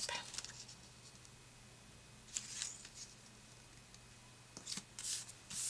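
Faint paper rustling as a strip of patterned paper is positioned and pressed flat onto a scrapbook page: a soft rustle about two and a half seconds in and a few brief ones near the end.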